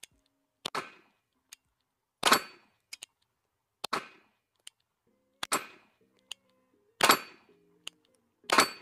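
Ruger LCP II .22 LR micro-pistol firing subsonic rounds: six sharp shots, about one every second and a half, with a short sharp tick between most of them.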